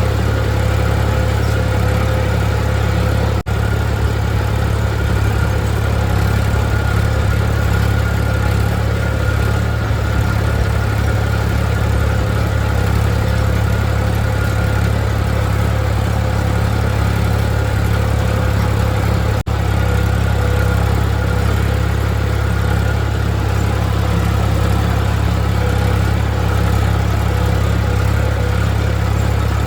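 Tractor engine running steadily at constant speed, a loud low rumble with a steady hum over it.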